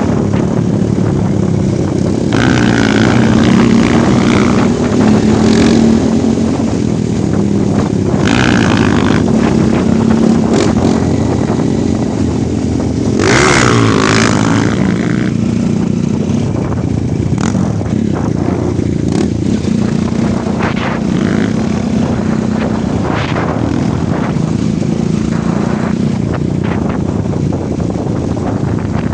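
Off-road motorcycle engine running steadily while being ridden, its note shifting a little with the throttle. Short bursts of noise cut in several times, the loudest about halfway through.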